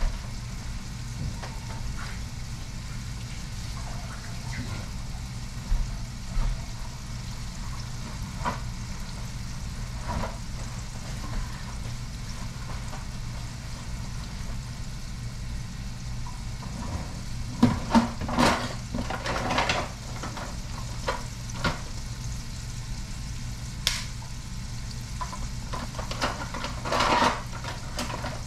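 Breaded channel catfish frying in hot oil in a cast iron pot, a steady sizzle. A few sharp knocks and clatters come about two-thirds of the way through and again near the end.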